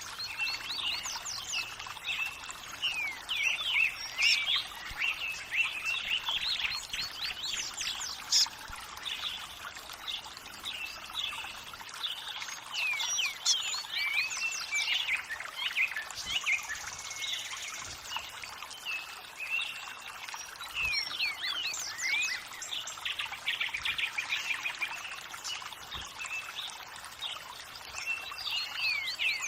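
Many birds chirping and calling in quick sweeping notes, over a steady wash of running water.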